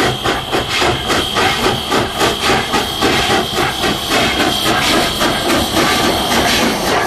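Steam locomotive working under steam, its exhaust chuffing in an even rhythm of about four beats a second, with a steady high hiss of steam.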